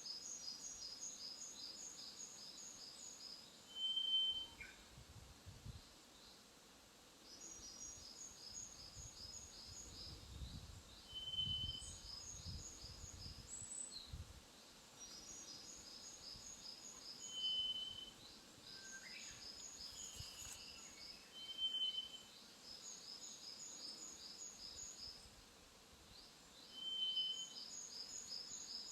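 A short, clear whistled note, the loudest sound, repeated five times about every five to six seconds, with runs of rapid high chirps in between. The whistle is the unexplained call, perhaps a bird's.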